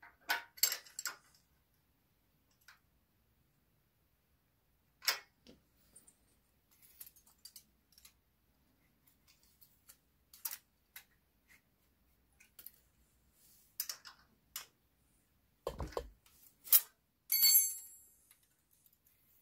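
Scattered clicks and clinks of small steel spanners and a feeler gauge on the rocker-arm tappet adjuster of a Honda CG125 engine, a few seconds apart. Near the end comes a dull knock, then a short ringing clink of metal.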